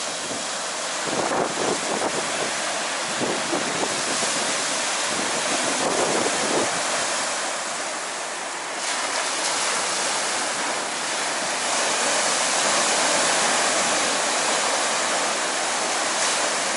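Rough sea surf breaking on a sandy beach: a continuous rushing wash of waves that swells and eases, dipping briefly about halfway through and building again after.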